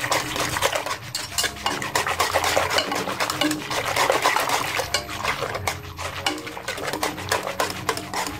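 Wire hand whisk beating warm milk in a nonstick pot, with a quick, continuous run of scraping and ticking as the wires strike the pot. The milk is being whipped to a froth before vinegar is added to set it into curd.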